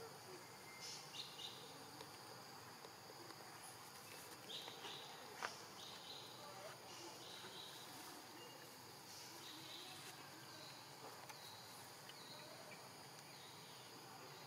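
Faint insect calls: short, high buzzy bursts recurring every second or so over a soft hiss, with one sharp click about five seconds in.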